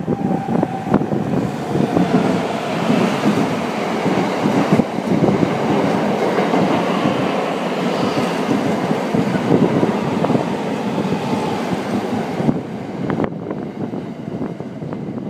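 Thunderbird limited-express electric train running past at speed, a continuous rumble of wheels on rail with rapid clicks as the bogies cross rail joints, easing slightly near the end as the last car goes by.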